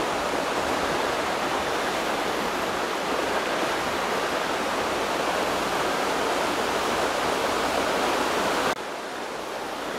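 River rapids rushing: a steady, dense noise of white water, which drops suddenly to a quieter level near the end.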